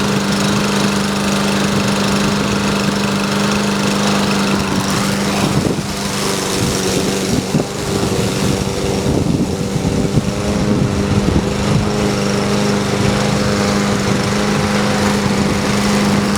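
Briggs & Stratton push lawn mower engine running steadily. From about six seconds in, irregular rattling and knocks join it, as when the mower is cutting grass.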